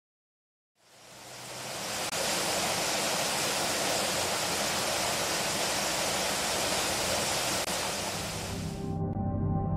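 Sea surf washing in: a steady rush of breaking foam that fades in after a second of silence and cuts off near the end, where ambient music begins.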